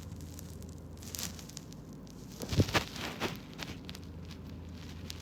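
Soft rustling and clicking handling noises over a steady low hum, with a short cluster of sharper knocks and clicks about two and a half to three and a half seconds in.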